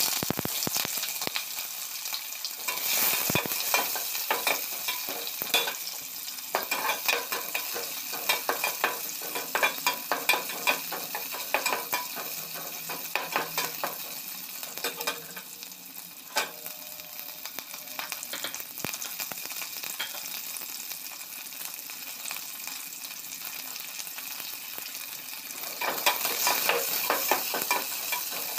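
Sliced onions and green chillies frying in hot oil in an aluminium pot: a steady sizzle with frequent clicks and scrapes of a metal spatula stirring against the pot. The sizzle grows louder about three seconds in and again near the end.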